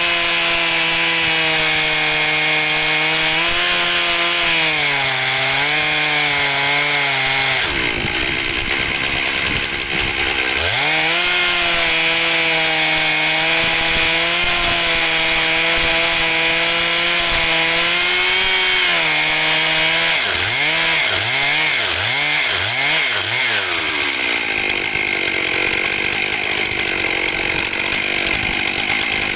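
Chainsaw running at high revs as it rips lengthwise through an oak log in a chainsaw mill. Its pitch sags about eight seconds in and climbs back about two seconds later. It wavers up and down several times in quick succession around twenty seconds. Near the end the steady engine note gives way to a rougher, noisier sound.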